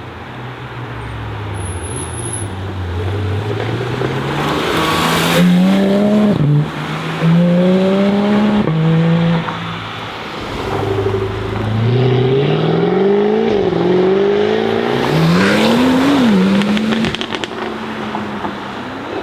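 Jaguar F-Type's 5.0-litre supercharged V8 accelerating hard, its engine note climbing and dropping back at each upshift, several times over.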